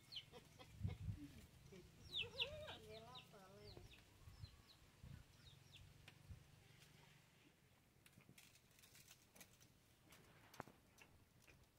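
Faint chickens clucking, with quick high chirps. The calls are mostly in the first four seconds and thin out after that.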